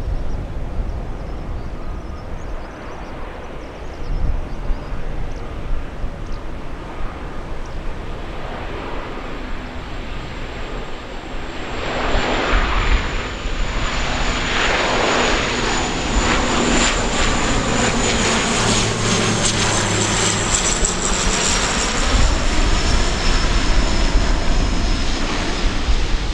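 De Havilland Canada Dash 8-400 turboprop on final approach, its engines and six-blade propellers growing louder about halfway through as it comes closer. A high whine slowly falls in pitch near the end as the aircraft draws level.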